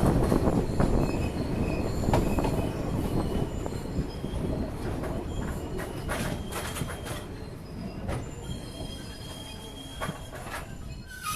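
Sri Lanka Railways Class S8 train running on the rails, its rumble fading steadily as it slows, with high wheel squeal and scattered clicks and rattles.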